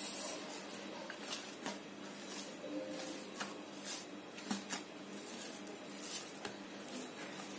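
Hand punching down and pressing risen bread dough in a glass bowl: soft irregular squishes and light taps as the air is knocked out of the dough after its first rise.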